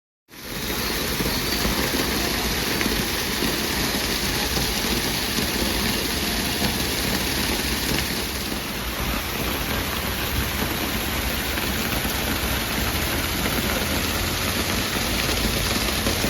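Waterfall: a steady rushing roar of falling water that cuts in suddenly just after the start and holds even throughout.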